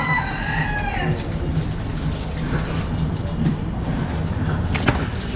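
A steady low hum under general background noise, with a short voice-like sound at the start and one sharp knock near the end.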